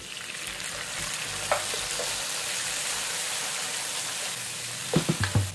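Tomato wedges, onion and garlic sizzling steadily in hot oil in a wok as they are stirred with a slotted spatula, with a few short knocks near the end.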